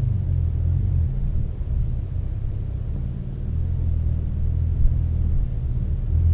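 Off-road vehicle's engine running at low revs, a steady low rumble.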